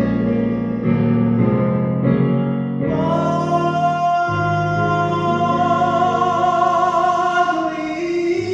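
Slow ballad singing with instrumental accompaniment. A singer holds one long, wavering note through the middle over sustained low chords.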